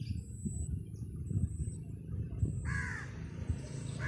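A bird giving a harsh call about two-thirds of the way through, with another starting at the very end, over an uneven low rumble.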